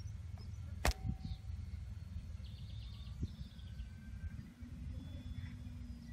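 Outdoor ambience: a low, steady rumble of wind on the microphone, a single sharp click about a second in, and faint bird chirps a few seconds in. A faint steady hum comes in after about four seconds.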